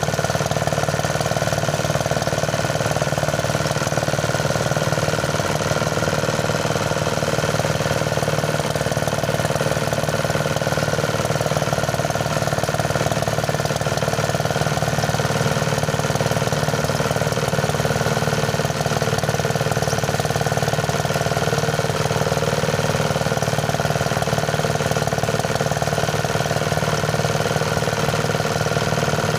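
Engine-driven rice threshing machine running at a steady, constant speed.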